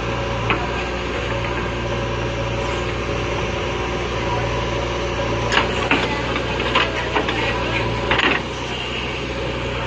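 JCB backhoe loader's diesel engine running steadily under digging load. A sharp knock comes about half a second in, and a run of sharp clanks and knocks follows from about five and a half to eight seconds in.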